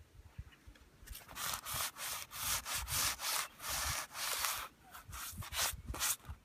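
Repeated hand rubbing strokes against a hard surface, quick back-and-forth at about three strokes a second, starting about a second in and stopping shortly before the end.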